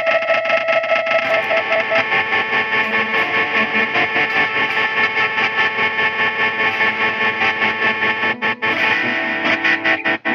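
Fender Jazzmaster electric guitar played through a chain of effects pedals into a Fender Vibrolux amp: a dense, sustained, distorted noise texture that pulses evenly, about four times a second, with two brief dropouts near the end.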